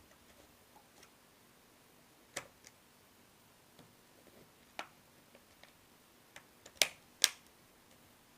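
Plastic clips of a Gigabyte P57 laptop's screen bezel snapping into place: scattered sharp clicks, the two loudest close together near the end.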